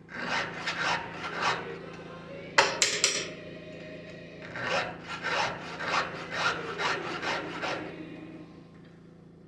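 Hand file rasping across the steel cutters of a chainsaw chain: a quick run of strokes, a few sharp clicks around two and a half seconds in, then a second run of strokes that trails off near the end.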